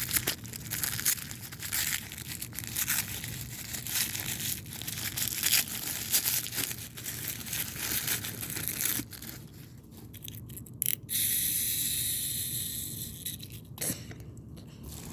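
Plastic toy packaging being handled and torn open, a dense run of crinkling crackles, then about eleven seconds in a smoother steady hiss for a couple of seconds, with a few clicks near the end.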